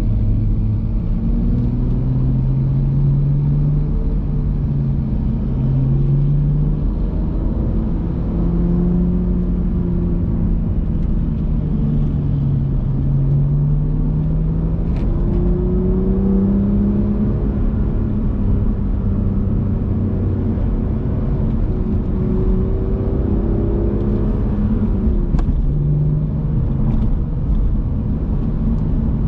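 BMW M2's turbocharged straight-six engine under way: its note climbs and falls repeatedly as the car accelerates and slows, over a steady low road rumble.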